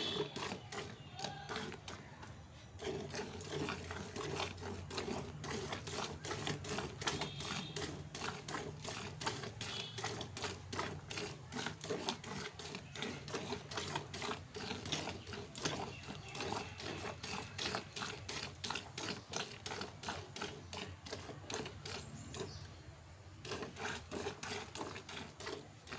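Hand-milking a cow: jets of milk squirting into a plastic bucket in a quick, even rhythm of short splashing strokes, with a brief lull near the end.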